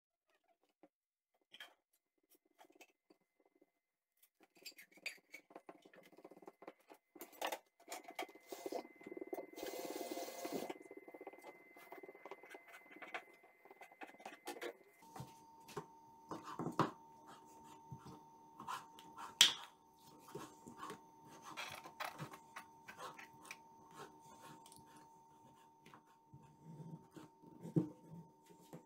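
A metal fork pricking pizza dough in metal baking tins: a long run of light taps, clicks and scrapes, with one louder clack about two-thirds through.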